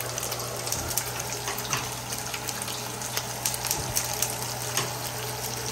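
Kitchen tap running steadily into a pot of freshly cut potatoes, with a few light clicks.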